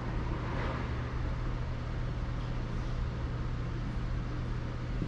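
A steady low mechanical hum, like a running engine or machine, with a faint brief rustle about half a second in.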